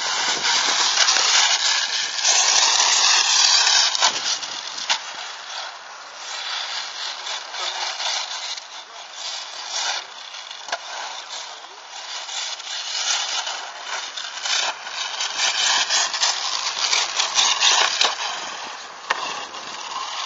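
Brushless-converted Team Associated RC8B 1/8 off-road buggy running on a dirt track: a high electric-motor whine rises and falls with the throttle, about two to four seconds in and again later, over a constant rushing noise of tyres on dirt and gravel, with scattered knocks from landings and bumps.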